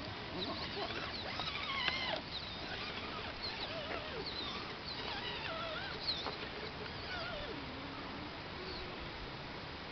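Scattered high chirping and squeaky animal calls, short and irregular, over a faint steady hiss.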